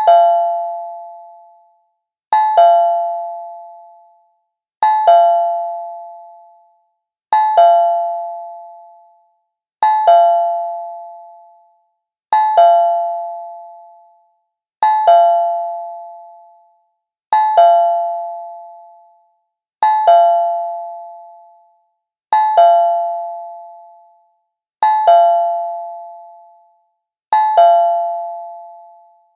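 Cartoon doorbell sound effect ringing over and over, about every two and a half seconds. Each ring is two quick chime strikes that ring out and fade away before the next.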